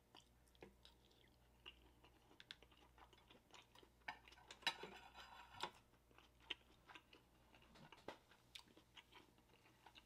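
Faint chewing of a mouthful of steamed dumpling: scattered soft wet clicks and smacks, with a denser, louder stretch about five seconds in.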